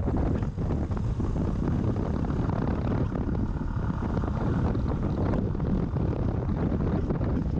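Wind buffeting the microphone: a steady, dense low rumble with no clear pitch.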